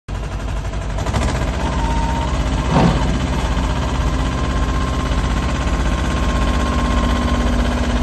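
Diesel engine of a Case 648 compact backhoe loader running with a fast, steady chug. About three seconds in there is a brief loud falling swish. After that a steady whine runs over the engine as the front loader bucket is raised.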